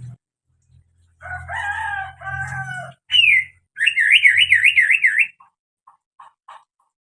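Cucak hijau (green leafbird) calling: two harsh calls with wavering pitch, then a falling whistle and a fast warbling trill, ending in a few short chips.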